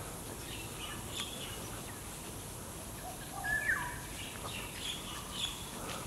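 Wild birds calling in the trees: a scatter of short, high chirps, with a slightly louder call a little past the middle that drops in pitch, over a steady outdoor background hiss.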